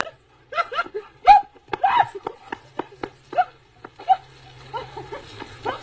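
An animal giving a quick series of short, high-pitched yelps, about a dozen over several seconds, each call bending in pitch.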